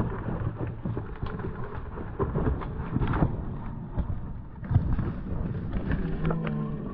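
Mountain bike being ridden fast down a rough, rooty forest trail: wind buffeting the camera microphone in a deep rumble, with frequent sharp knocks and rattles as the tyres, chain and frame hit roots and rocks.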